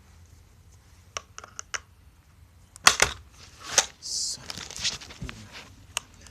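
Clicks and clatter of a screwdriver and metal iron sights being worked loose on an airsoft rifle's rail: a few light clicks about a second in, then two loud sharp clacks around three and four seconds in, followed by a short hiss and smaller ticks.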